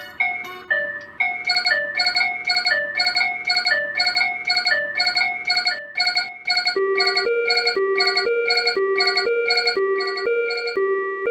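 Railroad crossing warning bells ringing together in a steady quick beat, about three strikes a second, alternating between two pitches. A second, lower-pitched pair of bells joins about seven seconds in.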